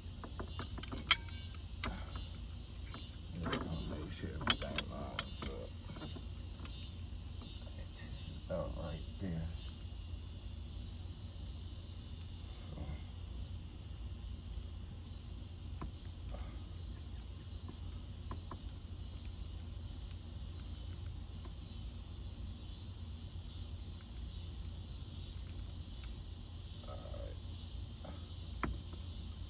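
Steady chirping of crickets over a low hum, broken by a few sharp clicks and knocks of small parts and tools being handled, the loudest about a second in and again about four to five seconds in.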